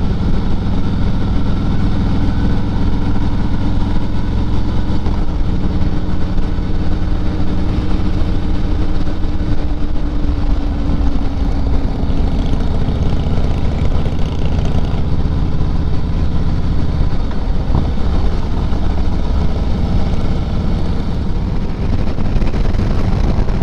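Motorcycle engine running under way at a steady cruising pace. The engine note shifts a few times, about 5, 10 and 17 seconds in, as the throttle or gear changes.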